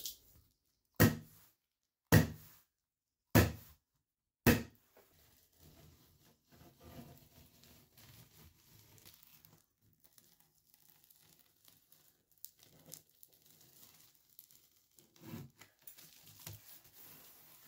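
Four sharp hammer blows about a second apart: a hammer driving carpet gripper pins through the strip into the timber subfloor. Then the soft rustle and crinkle of foam carpet underlay being laid and handled.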